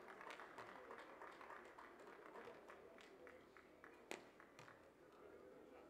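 Faint beach volleyball rally sound: scattered light taps and claps over a low background hum, then a single sharp slap of a hand striking the ball about four seconds in as a player attacks at the net.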